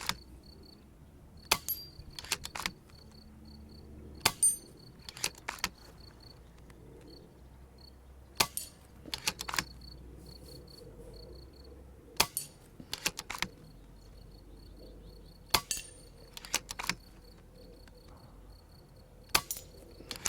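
FX Impact M3 PCP air rifle firing six shots, one every three to four seconds. Each sharp shot is followed about a second later by a couple of quieter clicks as the repeating action is cycled for the next pellet.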